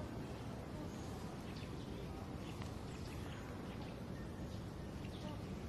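Outdoor ambience: a steady low rumble and hiss, with faint, short bird chirps scattered through.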